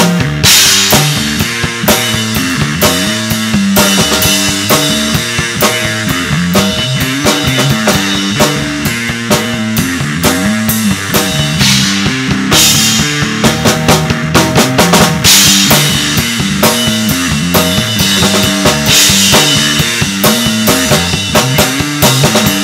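Rock band playing loudly on drum kit, electric bass and electric guitar, with steady drum beats and cymbal crashes a few times.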